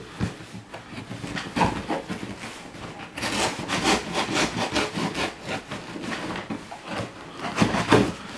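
Cardboard shipping box being cut open: a small blade sawing through the tape and cardboard in quick, regular strokes for a few seconds from about three seconds in, with scraping and handling of the box around it.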